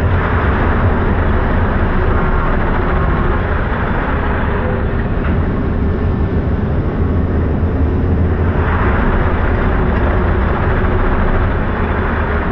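Ballast tamping machine working, its engine and vibrating tamping tines packing ballast under the track, heard as a loud, steady mechanical drone with a heavy low hum. The audio is slowed down with the slow-motion footage, so it sounds deeper and duller.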